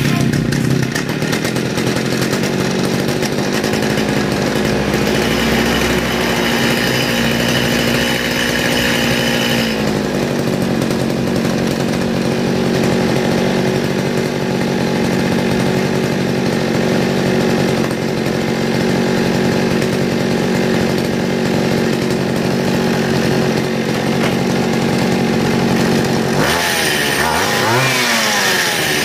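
Small two-stroke grass-trimmer engine running steadily at a fast idle. About three seconds before the end it is revved up and down repeatedly, the pitch swinging about once a second.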